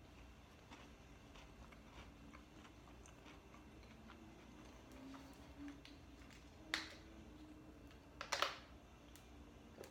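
Plastic water bottle being handled and drunk from: a sharp click, then a short burst of crinkling crackles about a second and a half later, which is the loudest sound. Faint small ticks are scattered through an otherwise quiet room.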